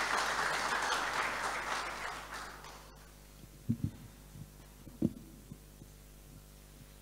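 Audience applauding, fading out after about two and a half seconds. Then a few low thumps as a microphone on its stand is handled and adjusted, over a faint steady hum.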